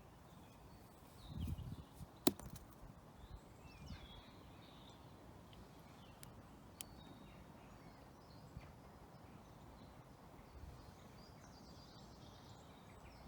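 Wind rumbling on the microphone, with faint bird chirps scattered through. A gust swells briefly about a second and a half in, and a single sharp click comes just after two seconds.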